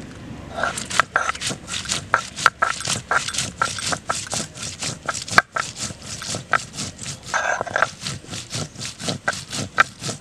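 Stone roller crushing dried red chillies on a flat stone grinding slab: a fast, irregular run of sharp cracks and knocks, several a second, that stops suddenly near the end.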